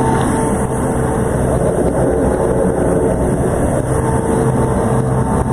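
Compact road sweeper running close by: a loud, steady engine drone with a constant whine held above it.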